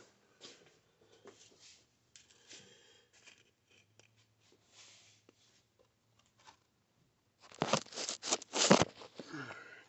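Faint rustles and small knocks of items being handled on a jeweler's bench. About seven and a half seconds in comes a short, loud run of clattering and scraping as a plastic jar of paste flux is brought in and set down.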